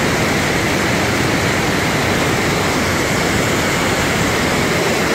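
The Rhine Falls: the steady, loud rush of a large waterfall's water falling and churning into the river below.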